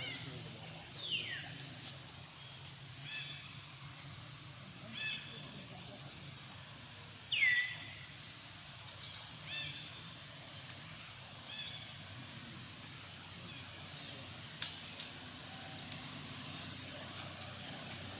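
Birds calling: short repeated chirps, high clicky trills, and two whistles that fall in pitch, the louder one about seven and a half seconds in, over a steady low hum.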